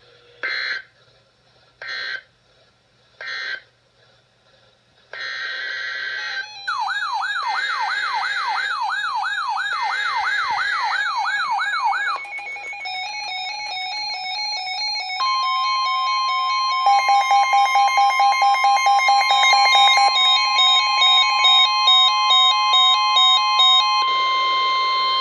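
Three short screeching data bursts of an emergency alert header, then a layered clash of electronic alert tones: a fast wailing sweep, stepped beeping patterns and, from about 15 seconds in, a steady tone near 1 kHz like the weather radio alarm tone. All of it cuts off abruptly near the end.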